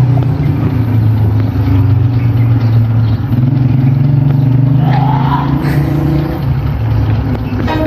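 A motor vehicle's engine running steadily with a low, even hum. A short higher tone rises and falls about five seconds in.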